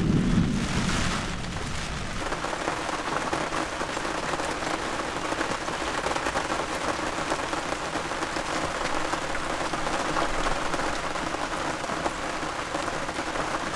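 Steady rain falling on a moored sailboat and the water around it. A low rumble of thunder fades out over the first two seconds.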